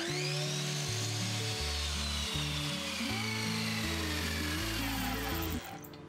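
An electric power tool switches on with a click and runs, its whine slowly falling in pitch, then drops away shortly before the end. Background music with a stepping bass line plays throughout.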